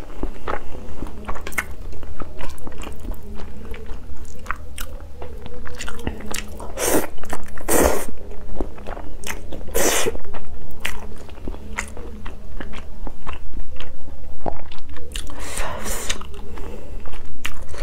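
Close-miked eating of spicy fire-chicken instant noodles: chewing and slurping, with many quick wet mouth clicks and a few louder slurps spread through.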